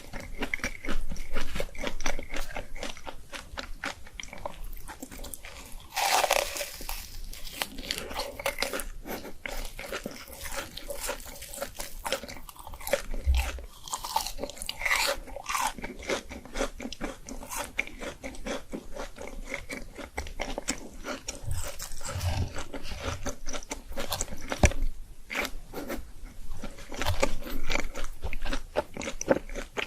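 Close-miked eating: a person biting into and chewing crunchy food, a dense run of crackly crunches and wet chewing, with a louder bite about six seconds in.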